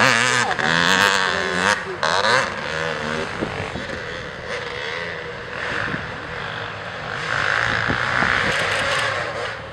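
ATV engines revving, their pitch rising and falling over the first few seconds, then settling into a steadier, quieter running drone that swells twice as the quads ride the dirt track.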